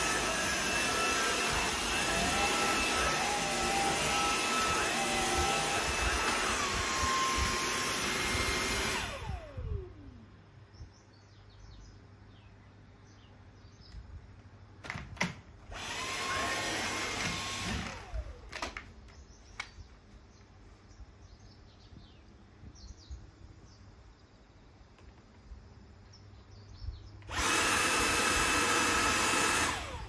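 Stick vacuum cleaner running with a steady motor whine, switched off about nine seconds in and spinning down with a falling tone. It runs again for about two seconds midway, then starts up once more near the end.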